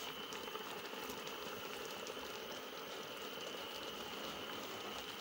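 A pot of soup bubbling at the boil with a steady soft crackle as chopped pumpkin leaves are tipped into it.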